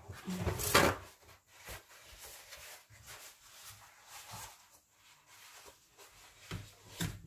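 A glass jam jar being handled with a cloth and its screw-on lid twisted shut: soft knocks, clicks and cloth rustling, with a louder knock and rustle about a second in.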